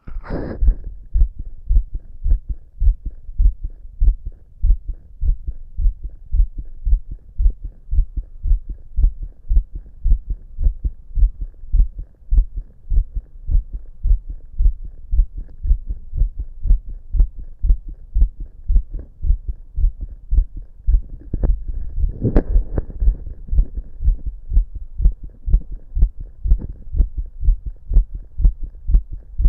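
Fast human heartbeat picked up from the chest: a quick, regular run of low lub-dub thumps. A brief scraping noise breaks in near the start and again about two-thirds of the way through.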